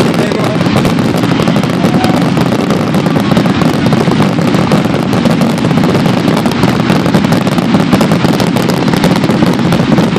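Fireworks display in a dense barrage: many shells bursting in rapid, unbroken succession, a continuous crackling and booming with no pause.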